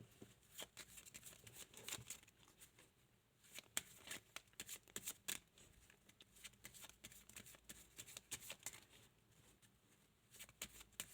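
Playing cards being shuffled and handled: faint, irregular crisp snaps and riffles, thickest about four to five and a half seconds in and again near the end.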